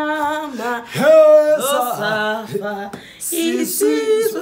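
Voices singing long, drawn-out and sliding notes without clear words, loud throughout. Near the end come two short hisses, from a hand-sanitiser spray bottle.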